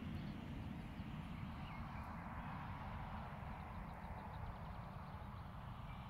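Open-air background of a low, uneven wind rumble on the microphone and a steady distant hum, with a few faint bird calls and a short run of quick, faint ticking notes a little past the middle.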